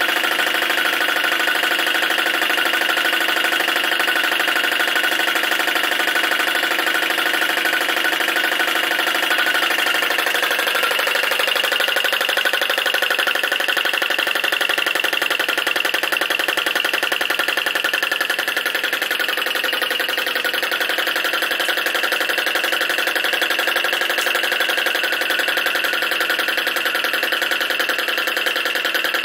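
Small flame licker (vacuum) engine running fast and steady with a rapid, even beat, belt-driving a little generator.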